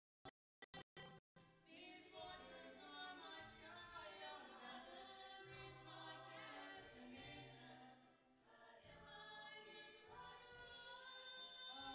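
Show choir singing, holding sustained chords in several parts. For about the first second the sound drops in and out in short broken snatches before the singing runs on without gaps.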